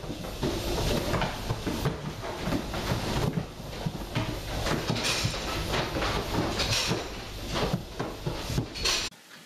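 Goats' hooves clattering on the raised stand of a milking parlour, with many sharp knocks and bumps as the goats file in. The sound cuts off suddenly near the end.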